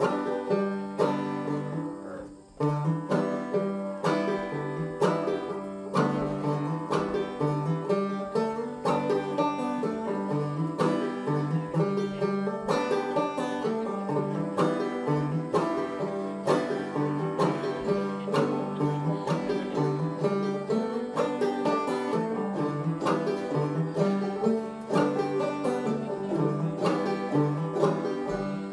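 Banjo played clawhammer style, a steady old-time tune of rapid plucked notes with a brief break about two and a half seconds in before it carries on.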